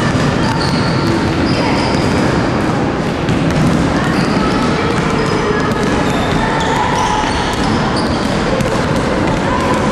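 Many basketballs dribbled at once on a hardwood gym floor: a steady clatter of overlapping bounces, with short high squeaks scattered through it, echoing in a large hall.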